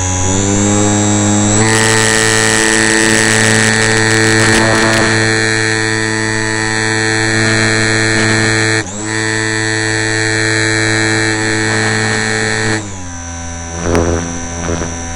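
Small RC airplane's motor and propeller heard from the onboard camera: a loud, steady, multi-pitched whine that rises in pitch about a second and a half in as the throttle opens, dips sharply for a moment near nine seconds, and drops back in pitch near the end as the throttle comes back.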